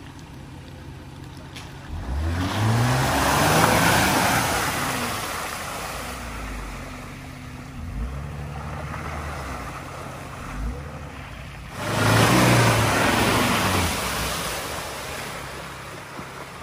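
Two 4x4s drive one after another through a deep muddy water hole, a Jeep Wrangler and then a Ford Ranger ute. Each engine revs up with a rush of splashing water, about two seconds in and again about twelve seconds in.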